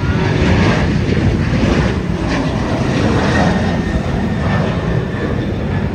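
Twin-engine narrow-body jet airliner at takeoff power, climbing out just after liftoff: a loud, steady jet-engine rumble with a rushing hiss above it.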